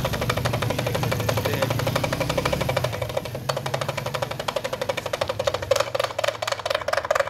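Small hand drum beaten in a fast, even continuous roll, louder over the last two seconds.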